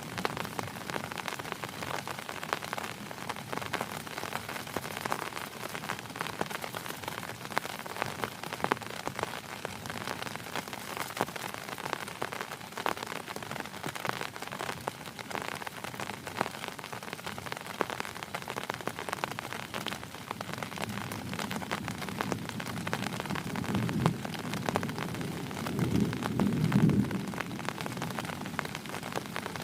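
Heavy rain falling steadily on a surface, a dense patter of countless drop ticks. A low rumble swells and fades in the last few seconds.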